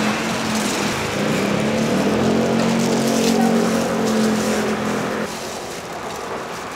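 A steady pitched hum, like a small motor running, over busy market background noise; the hum cuts off abruptly about five seconds in.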